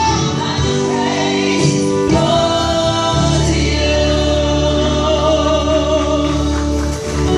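Gospel worship singing with instrumental backing, the voices holding long sustained notes over a steady bass.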